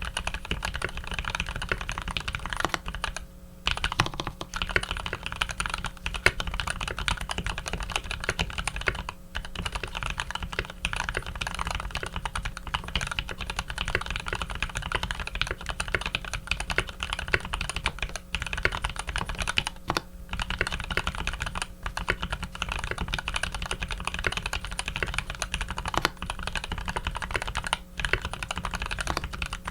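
Fast, continuous typing on a custom EO87 mechanical keyboard with lubed Cherry Top H1 switches, PBT keycaps and an aluminium plate: a dense run of clacking keystrokes, broken by a few short pauses.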